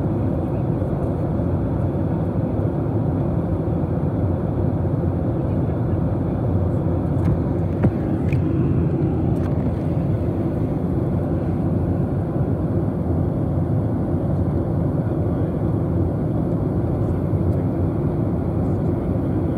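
Steady cabin noise of a WestJet Boeing 737 airliner in cruise flight: the even, deep roar of the engines and airflow over the fuselage. A small click is heard about eight seconds in.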